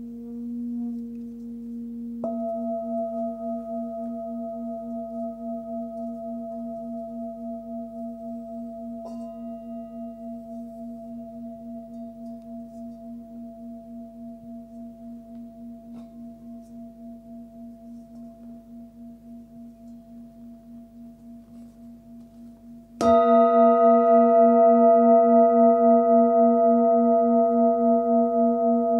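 Nepalese singing bowl of about 19 cm, with its fundamental near 236 Hz (A#), ringing with a slow pulsing beat. It is struck softly with a mallet about two seconds in and rings on, fading slowly. A few seconds before the end it is struck hard and rings much louder, with many overtones.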